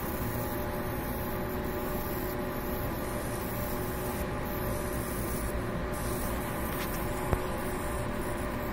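Laser engraving machine running while it marks a stainless steel thermos: a steady hum and hiss with a few faint steady whine tones, and one brief click about seven seconds in.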